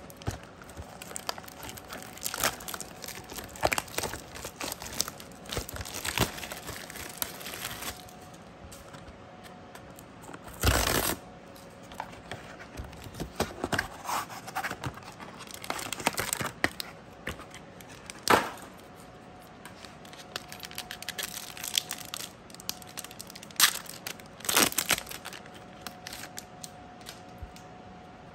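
Plastic wrapper of a Magic: The Gathering Unfinity collector booster pack being crinkled and torn open, with many small crackles and a few louder rips spread through.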